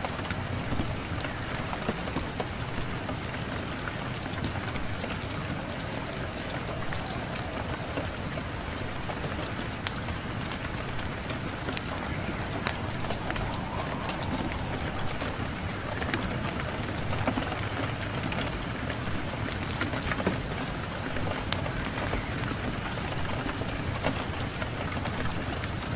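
Fireplace wood fire crackling, with frequent sharp pops over a steady rush of wind.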